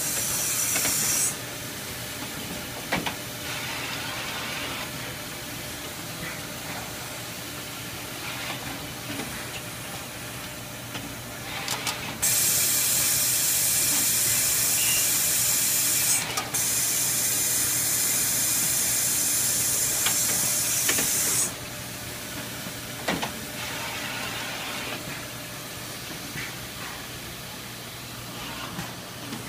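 Koyo automated grinding line running: a steady machine hum with occasional clicks and knocks, and loud hiss that stops about a second in and returns near the middle as two long bursts of about four and five seconds, each cutting off sharply.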